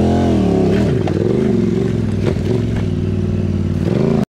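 Yamaha Ténéré motorcycle engine under way, revving up and dropping back several times as the throttle is worked, with a few sharp knocks along the way. The sound cuts off abruptly near the end.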